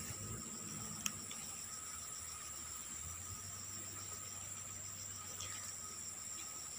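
Steady chorus of insects: several high, unbroken trills, one with a fast pulse, layered together. A single short click about a second in.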